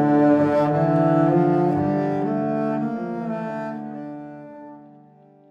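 Instrumental background music with long held notes in the low strings, fading out over the last couple of seconds.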